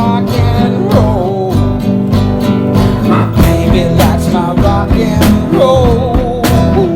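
Country-rock music with guitars and a steady beat, a bending melodic line running over it.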